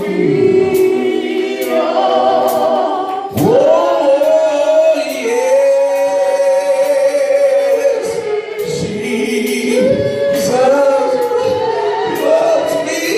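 Gospel worship singing: a group of voices holding long sustained notes with vibrato, with scattered sharp percussive hits.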